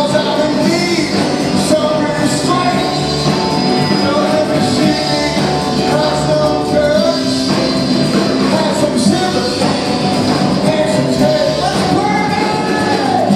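Live rock band playing, with a man singing lead over electric guitar, bass guitar and drums.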